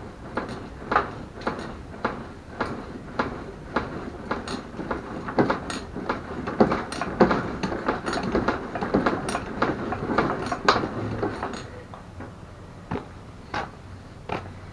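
Irregular clicks, knocks and clatter of hard objects being handled, busiest in the middle stretch.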